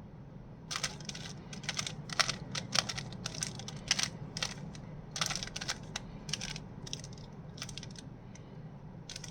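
Rubik's Cube layers being twisted by hand: quick runs of plastic clicks and clacks starting about a second in, growing sparser near the end, over a steady low hum.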